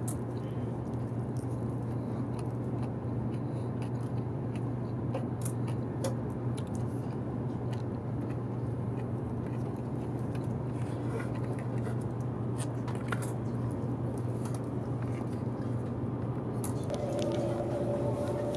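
Steady interior running noise of a Taiwan High Speed Rail 700T train in motion, a low hum with a rumbling haze, with small sharp clicks scattered through it from chopsticks and eating. Two steady tones start near the end.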